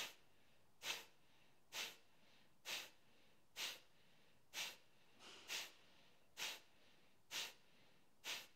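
Faint, short, forceful exhales through the nose, about one a second in a steady rhythm. This is rapid breathwork, pushing the air out as if blowing the nose.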